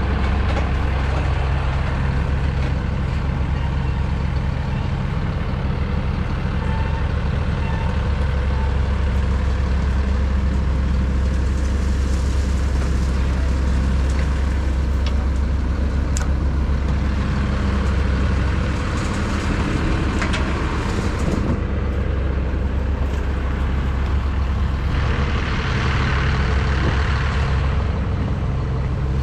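Tractor engine running steadily with a deep, even hum, with a couple of short stretches of added hiss in the second half.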